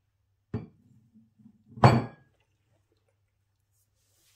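Two knocks of kitchenware, the second louder with a brief clink, as cheesecake filling is worked in a metal springform tin with a silicone spatula.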